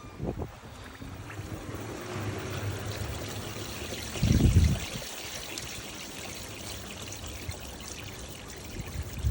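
Water trickling and pouring in the tub of an LG TurboDrum direct-drive top-loading washing machine during a wash cycle, with one louder low thump about four and a half seconds in.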